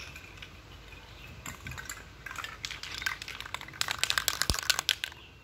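Aerosol spray-paint can being shaken, its mixing ball rattling in quick sharp clicks that grow loudest and densest about four seconds in.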